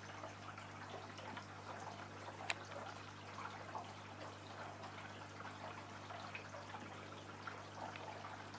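Aquarium filter running: water trickling and dripping over a steady low hum, with one sharp click about two and a half seconds in.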